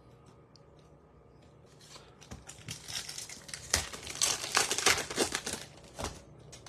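Foil wrapper of a Topps Chrome baseball card pack crinkling as it is torn open by hand. The crinkling starts about two seconds in, is loudest in the middle, and stops shortly before a single knock near the end.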